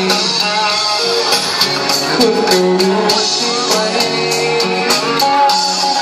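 A man singing a Thai pop song live into a microphone over a backing track with a steady drum beat and guitar.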